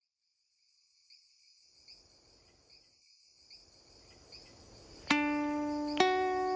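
Crickets chirping in steady, pulsing trills, with a faint hiss underneath. About five seconds in, two ringing plucked-string notes sound, the second a step higher and both much louder than the chirping.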